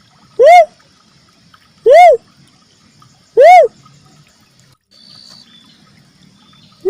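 Lure-call recording of the uncal merah cuckoo-dove: a short hooting note that rises and falls in pitch, repeated about every one and a half seconds, three times, with a fourth starting at the very end.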